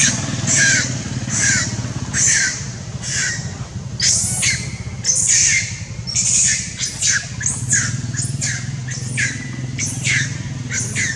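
Baby long-tailed macaque screaming in distress over and over while pinned under a larger monkey: short shrill cries, about one a second at first and coming faster in the second half. A steady low hum runs underneath.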